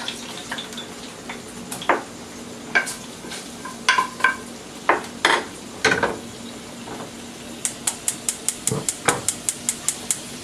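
Metal utensil clinking and scraping against a cooking pan over a faint sizzle, with several ringing knocks in the first half. Near the end comes a quick run of light taps, about six a second, as the utensil works the pan.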